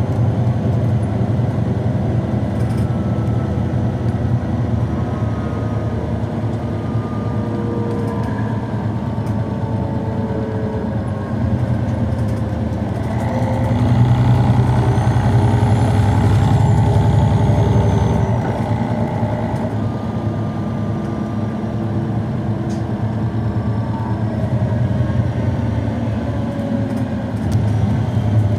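MAN D2866 straight-six diesel of a 2006 Neoplan Centroliner city bus idling with a steady low hum. It swells louder for a few seconds about halfway through.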